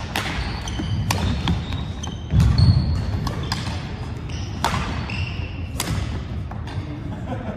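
Badminton rally on a wooden gym floor: sharp racket hits on the shuttlecock about a second apart, sneakers squeaking on the court, and thudding footsteps, heaviest a little after two seconds in.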